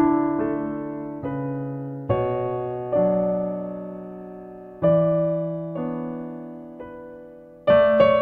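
Solo piano in a slow ballad intro: chords struck about once every one to two seconds and left to ring and fade.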